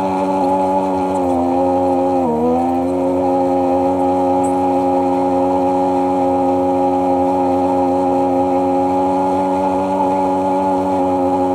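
Sea-Doo personal watercraft engine running steadily under way, its pitch dipping briefly about two seconds in and then holding steady again.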